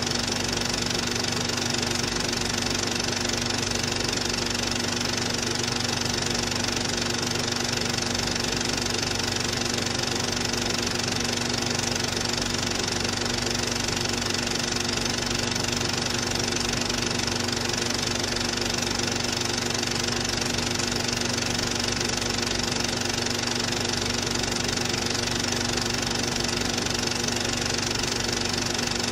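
Cine film projector running: a steady mechanical whirr and clatter over a constant hum that never changes.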